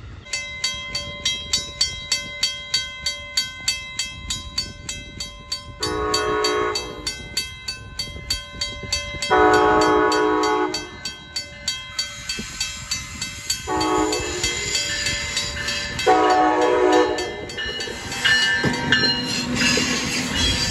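Train horn sounding the grade-crossing signal, long, long, short, long, the second blast the loudest, over a bell ringing steadily at about two to three strikes a second. From about halfway through, the rushing noise of the passing train builds underneath.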